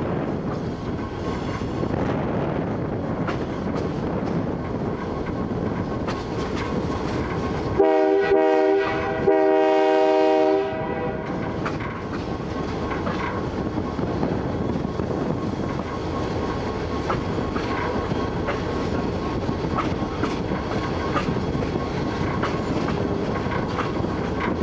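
Model train running on metal track, heard from on board: a steady rumble and clatter of wheels on rail, broken about eight seconds in by two horn blasts, the second longer.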